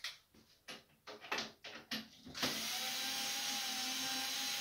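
A few light knocks, then about two and a half seconds in an electric screwdriver with a 4 mm hex bit starts running steadily, tightening a bolt in the wooden cot frame.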